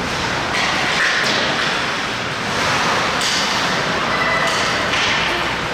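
Ice hockey skates scraping on the ice in repeated short hissing bursts over a steady rink background noise.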